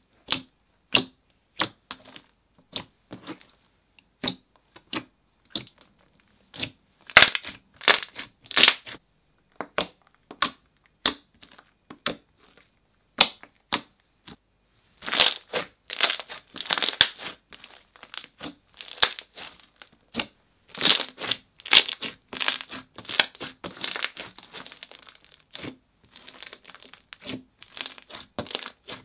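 Hands squeezing, poking and stretching soft, creamy slime, making irregular sharp clicks and pops. The clicks are sparse at first and turn into thicker runs of crackling in the second half.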